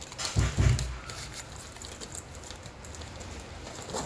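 Handling noise: a couple of dull low thumps about half a second in, then light scattered clicks and rustles of small items being moved about by hand.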